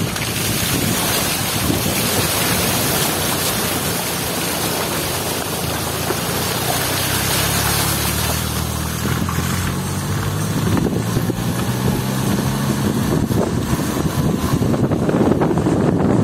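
A van driving on a mountain road, recorded from outside its window: wind buffets the microphone over the tyre noise and the engine's steady hum. Through the first half the tyres hiss through water running across the road; the hiss thins out about halfway through, and the wind rumble grows rougher near the end.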